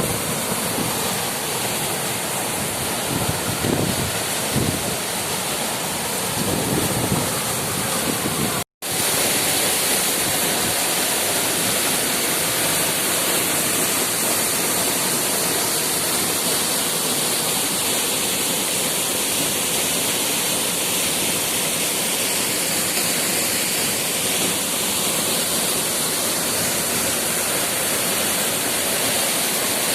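Waterfall rushing steadily, a dense even hiss of falling water. It cuts out completely for a split second about nine seconds in, then carries on.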